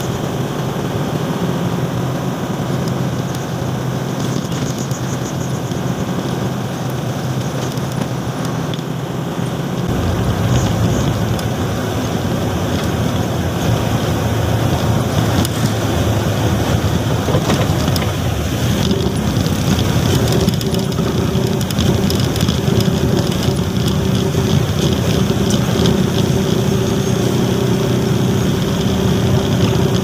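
Truck engine running steadily while under way, getting louder about ten seconds in.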